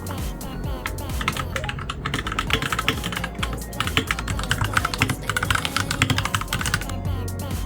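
Fast typing on a Royal Kludge RK61 mechanical keyboard: a dense run of key clicks starting about a second in and easing off near the end, over background music.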